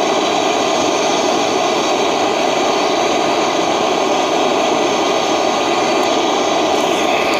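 Homemade paint-can propane forge burner running with a steady, even rush of flame and gas, unchanging throughout.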